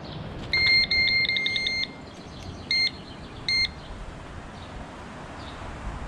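Electronic carp bite alarm beeping: a quick string of high beeps lasting about a second and a half, then two single beeps, as line runs over the alarm.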